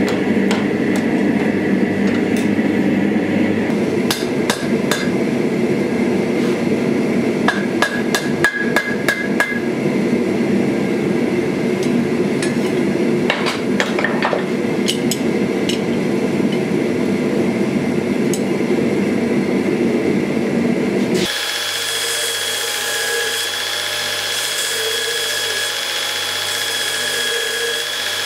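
Gas forge burner running with a steady low rush. From about four seconds in, a hammer strikes hot steel on an anvil in irregular clusters of blows. About 21 seconds in this gives way to a belt grinder running with a steady high whine and the hiss of steel being ground against the belt.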